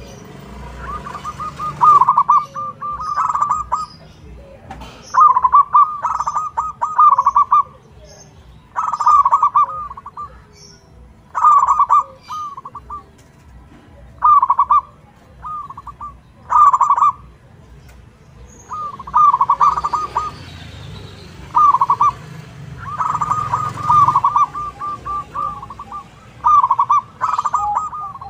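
Zebra dove (perkutut) cooing its rhythmic, staccato song: a dozen or so quick phrases of rapid notes, repeated every two to three seconds, some phrases running longer.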